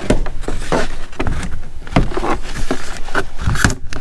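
Hard black plastic carrying case being handled and tipped up onto its end: a busy run of knocks, taps and scrapes.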